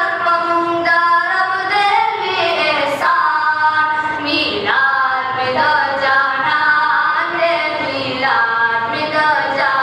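Two young male voices singing a Pashto naat into a microphone, unaccompanied, in a high, melismatic line with long held notes.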